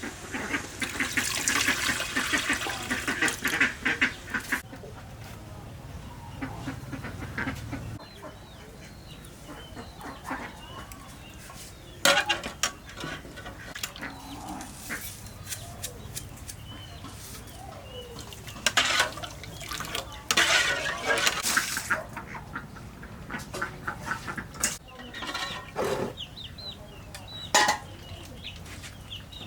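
Farmyard poultry calling, with several sharp knocks and clatters scattered through.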